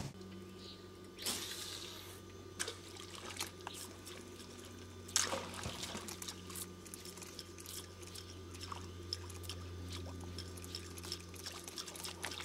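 Small splashes and drips on river water, a scattered run of short plops with a sharper splash about a second in and another about five seconds in, over a steady low hum.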